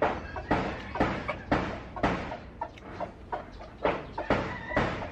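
A steady run of sharp knocks, a little over two a second, with a chicken clucking faintly near the end.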